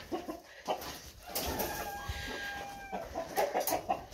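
Chickens clucking, with one drawn-out call lasting about a second and a half from about a second and a half in.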